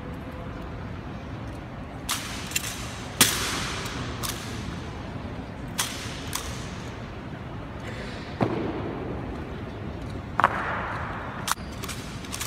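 Honor guard rifle drill: about ten sharp, irregularly spaced knocks and slaps of rifles being handled and struck, the loudest about three seconds in, each ringing on in the echo of a large marble hall.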